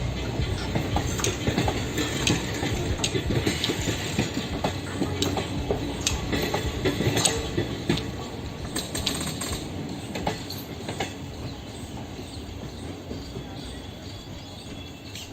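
Passenger train rolling slowly, its wheels clicking over rail joints with a steady rumble, fading after about eight seconds.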